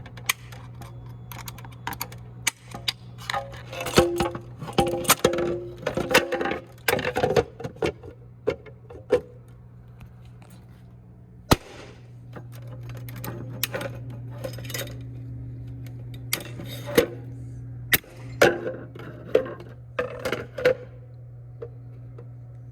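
Scattered sharp clicks, knocks and clinks over a steady low hum, which grows louder about halfway through.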